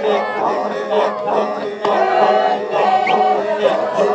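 Group of Maasai men chanting unaccompanied for the jumping dance (adumu), several voices weaving over a steady low drone.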